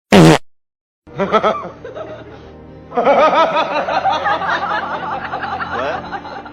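A brief loud sound right at the start, then, after a second's pause, people laughing, the laughter growing fuller about three seconds in.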